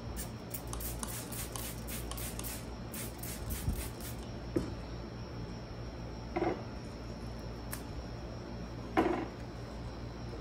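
Crinkling, crackling rustle of white packing shred being pulled off an orchid stem, with many quick crackles in the first three or so seconds. It is followed by a few short knocks and handling bumps, over a steady low hum.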